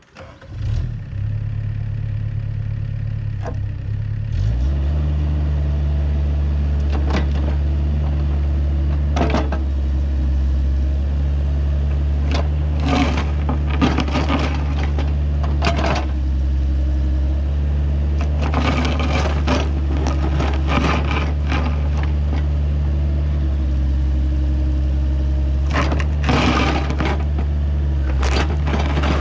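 Mini excavator's diesel engine running, stepping up to higher revs about four seconds in, with repeated scrapes and clanks as the bucket digs.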